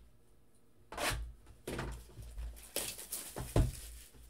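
Cardboard trading-card box being handled on a desk: a run of short rustles and scrapes, with one sharp knock about three and a half seconds in.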